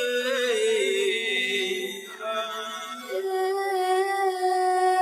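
A dog howling in long, drawn-out notes that slide between pitches. The howl breaks about two seconds in and then holds one long steady note.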